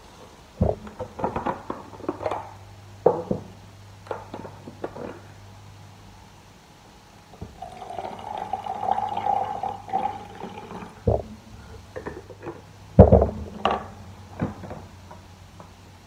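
Warm water poured from a plastic thermos flask into a plastic mug for a few seconds in the middle, between clicks and knocks of the flask's lid being opened and closed and the mug handled on the table; the loudest knock comes a few seconds before the end.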